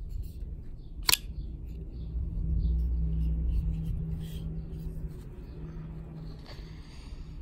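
Folding knife's blade flipped open: one sharp metallic snap about a second in as the blade swings out and locks, with a fainter click near the end. A low rumble runs underneath for a few seconds in the middle.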